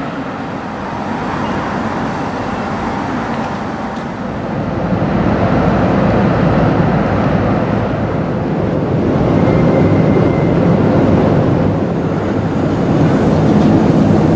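Steady low rumble of passing vehicles, swelling louder about five seconds in and again near the end.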